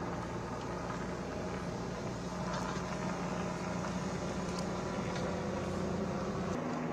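Steady low hum of an idling vehicle engine, with a few faint clicks in the middle; the hum changes abruptly near the end.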